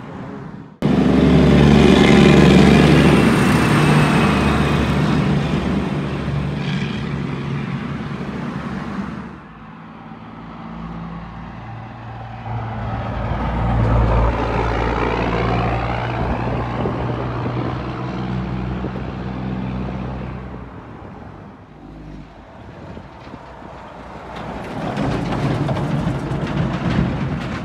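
Heavy diesel trucks driving past close by, one after another: three loud passes of engine noise, each swelling and then fading. The first starts suddenly just under a second in, one peaks about halfway, and the last comes near the end.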